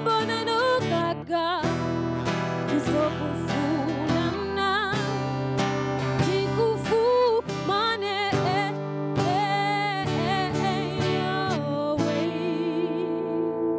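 Solo singer with a strummed acoustic guitar, performing live into a microphone.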